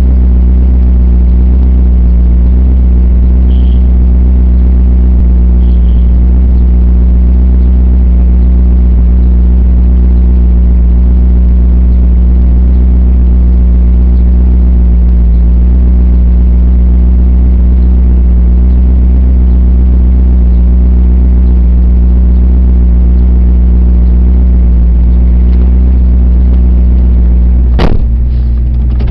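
Vehicle engine idling steadily, loud and close to the microphone, with a deep, even hum. A sharp click comes about a second before the end.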